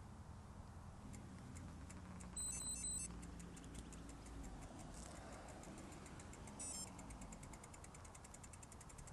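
Mountain bike's rear freehub ticking rapidly and evenly as the bike coasts, over a low traffic rumble. A short run of high electronic beeps comes about two and a half seconds in, and a shorter one near seven seconds; these are the loudest sounds.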